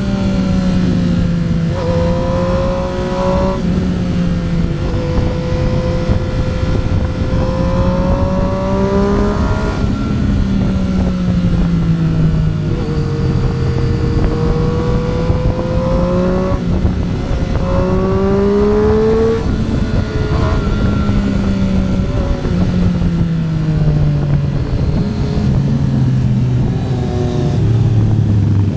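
Triumph Street Triple RS three-cylinder engine under way, revs climbing and falling again and again with several quick gear changes, over steady wind rush.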